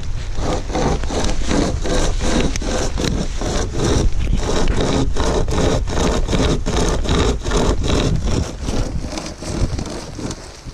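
Hand saw cutting through a silver birch log in quick, even back-and-forth strokes, about three a second, stopping near the end.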